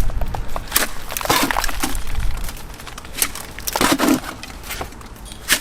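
Old cement render being chipped and broken away with hand tools: irregular cracks, scrapes and crumbling pieces falling, in clusters with short pauses between.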